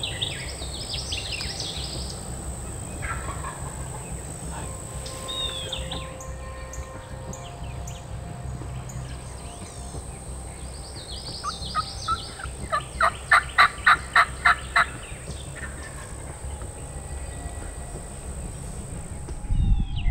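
Wild turkey yelping: a run of about nine evenly spaced calls, swelling then fading, with small songbirds chirping earlier.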